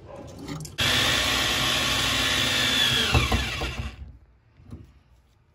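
Electric drill running at full speed for about three seconds, driving a white plastic bumper into a steel door frame. Its pitch then falls as the motor winds down and stops.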